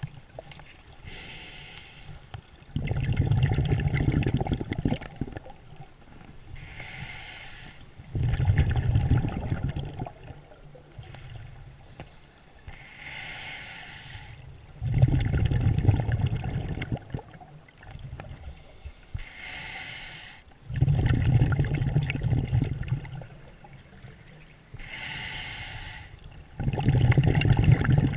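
Scuba diver breathing through a regulator underwater: each breath is a short hiss on the inhale, then a louder rumble of exhaled bubbles, repeating about every six seconds, five breaths in all.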